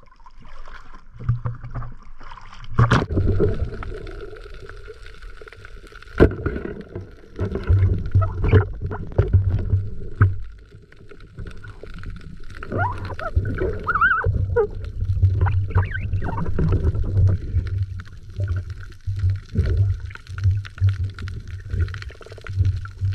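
Water sloshing and gurgling around a camera held in the sea, with two sharp knocks about three and six seconds in and a few short squeaky glides in the middle.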